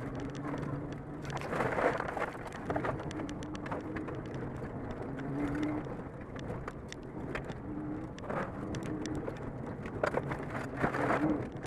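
Rallycross car heard from inside the cabin on a gravel run: the engine revs up and down through the corners while loose gravel rattles and pings against the underbody.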